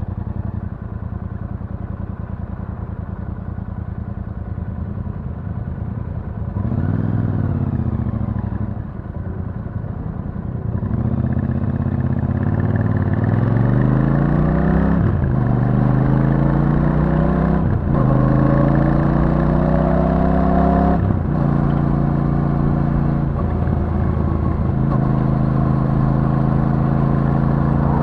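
Royal Enfield Super Meteor 650's 648 cc parallel-twin engine through its stock exhaust. It runs low and steady, blips up and back down once, then pulls hard through three upshifts, each marked by a sudden drop in pitch, and settles into a steady cruise.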